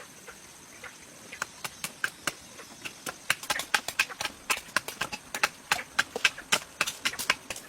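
A run of sharp knocks of a tool striking wood, sparse at first and then about three blows a second from about three seconds in.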